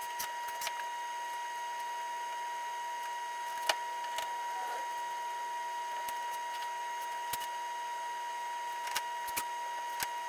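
Scattered sharp clicks and knocks of metal bar clamps being set and tightened on plywood parts, over a steady high-pitched whine.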